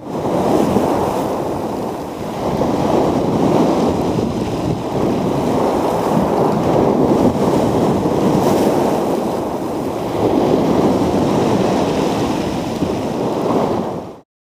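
Wind buffeting a small action camera's microphone: a loud, steady, low rushing noise with slow surges that cuts off sharply near the end.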